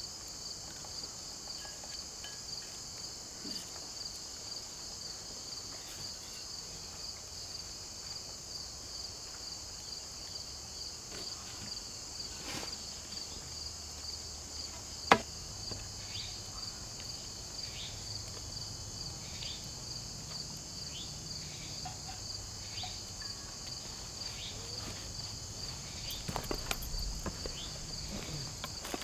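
Steady high-pitched chorus of insects, a fast pulsing trill with a hiss above it. One sharp knock about halfway through, and footsteps near the end.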